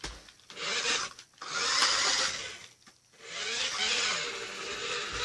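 Toy remote control car's small electric motor and gears running with a whirring whine, in three runs of a second or two.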